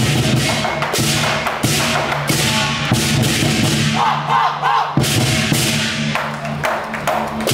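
A Chinese-style drum and cymbal ensemble playing: large barrel drums beaten together with big hand cymbals clashing on a steady beat. The low drumming drops back briefly about four seconds in and returns about a second later.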